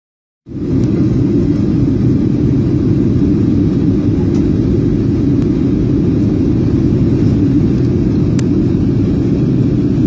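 Steady low rumble of a Boeing 737 airliner's cabin in flight on descent, with engine and airflow noise heard at a window seat. It starts about half a second in.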